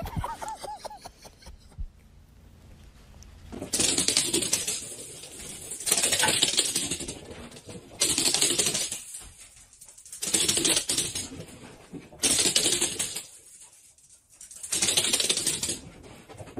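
Puppies' claws clattering on a wooden floor in a series of short scampering runs: rapid clicking bursts of a second or so, about every two seconds from a few seconds in.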